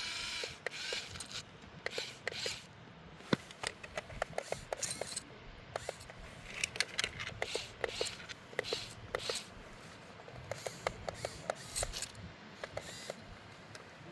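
Irregular clicks, ticks and short scrapes from a radio-controlled model excavator at work.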